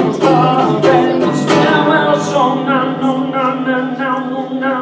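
A man singing a long held closing phrase with a sliding pitch, accompanied by an acoustic guitar that is strummed a few times in the first second and a half and then left ringing.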